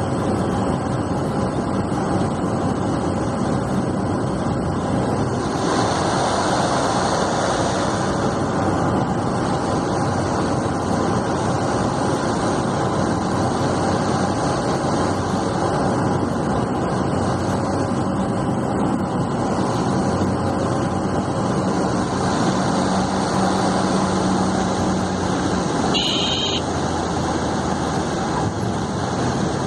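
Steady drone of a Cessna 208B Grand Caravan's turboprop engine and propeller, heard inside the cockpit. The noise swells for a couple of seconds about six seconds in, and a brief high-pitched sound cuts through near the end.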